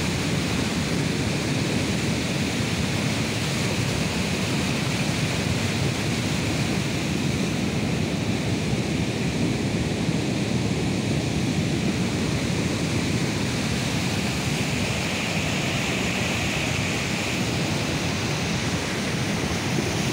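Steady rushing of a river in flood, its muddy water running fast.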